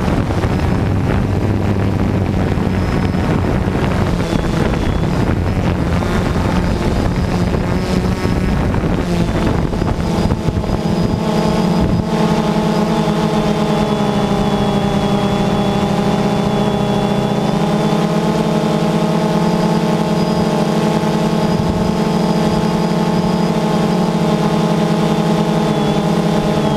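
DJI Phantom 2 quadcopter's motors and propellers humming, with rushing wind on the microphone for the first ten seconds or so. The hum then settles into a steady, even drone with a thin high whine above it.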